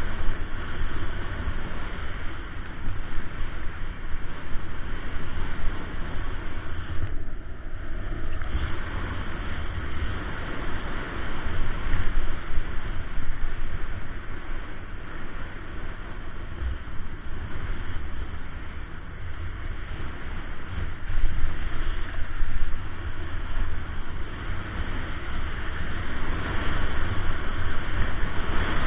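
Snowboard riding down a packed, tracked piste: wind buffeting the action camera's microphone in a low rumble, over the steady scraping hiss of the board's base and edges on the snow.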